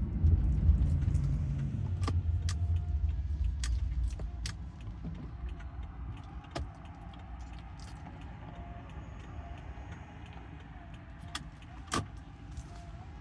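A motor vehicle's low rumble, loud for the first four or five seconds and then fading, with scattered sharp clicks and a faint wavering tone in the second half.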